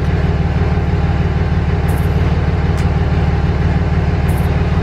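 Common-rail diesel pickup engine idling steadily with an even low pulse. There are a couple of faint light clicks.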